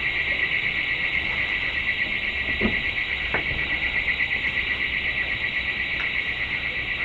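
Scaffold intruder alarm sounding: a continuous, rapidly pulsing high-pitched tone. A couple of faint knocks come from climbing on the steel scaffold tubes.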